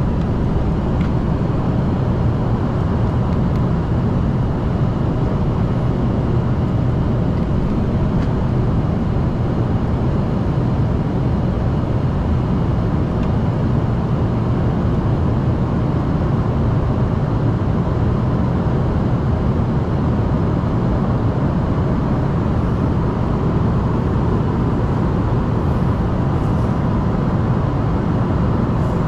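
Steady cabin noise inside an Embraer ERJ-145 regional jet: a low, even roar of the rear-mounted Rolls-Royce AE 3007 turbofans and airflow, with a faint steady whine.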